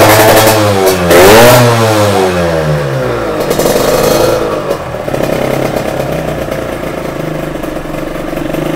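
Kawasaki Ninja 150's two-stroke single-cylinder engine running through a GJR racing exhaust. It is revved hard about a second in and falls back, revved briefly once more, then settles to a steady idle.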